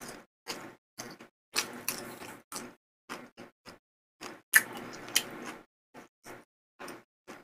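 Close-miked chewing of a mouthful of food: irregular short, wet mouth sounds, with two longer stretches of chewing and a sharp, louder one about four and a half seconds in.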